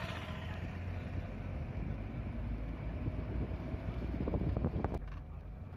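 Steady low rumble of a moving vehicle, with wind on the microphone. A few sharp knocks or rattles come about four to five seconds in.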